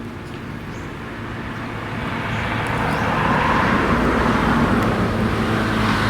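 A motor engine running, growing louder over the first three seconds and then holding steady.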